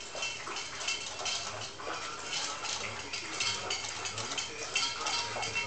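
Rabbit licking the metal spout of a hanging cage water bottle: rapid, irregular metallic clicking, several clicks a second.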